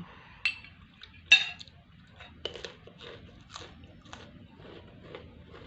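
Cutlery clinking on a plate, the loudest clink ringing briefly about a second and a half in, with softer clicks of chewing and handling after it.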